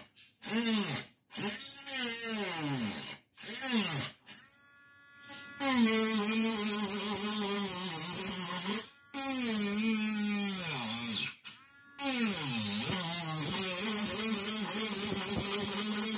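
Handheld rotary tool cutting into a coconut shell. The motor whines in several short bursts with falling pitch, then in three longer runs at a steady pitch, with brief stops between them and a grinding hiss while it cuts.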